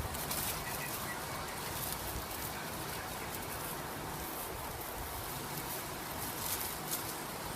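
Campfire ambience: a steady hiss with a few faint scattered crackles and clicks.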